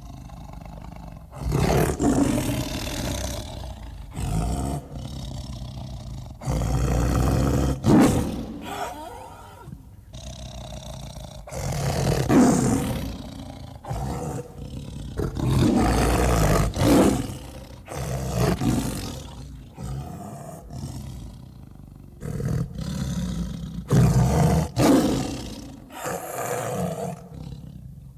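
Big-cat roars and growls, a sound effect built from lion and jaguar sounds: about nine loud, rough roars at irregular intervals, with quieter growling between them.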